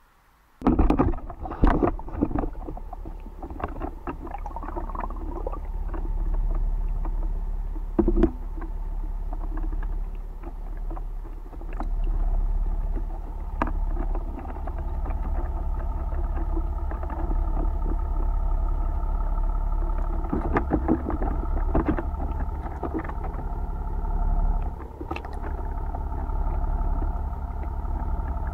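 A boat's motor running, picked up underwater by the camera: a steady low hum with several held tones that starts about a second in, with scattered knocks and clicks on top.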